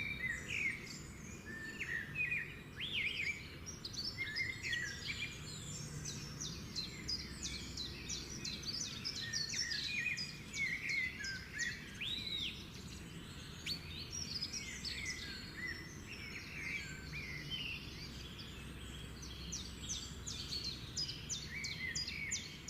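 Small bird calling over and over with short, sharp chirps, several a second: the alarm of a parent bird disturbed from its nest.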